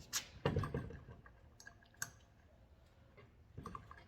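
A few scattered light clicks and knocks of a hand tool working a thread-locked bolt on a mini bike: a low knock about half a second in, a sharp click around two seconds, and a small cluster near the end.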